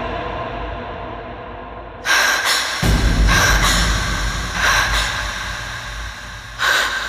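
A woman gasping and breathing hard in shock, with about five sharp, breathy gasps starting two seconds in, each a second or so apart.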